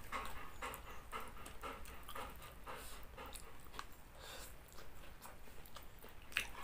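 A dog panting close by in quick, even breaths, about three a second.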